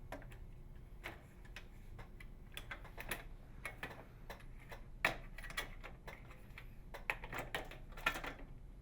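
Irregular light clicks and ticks of a putty knife and small flathead screwdriver prying around the plastic inner trim of a microwave oven door, releasing its retaining clips.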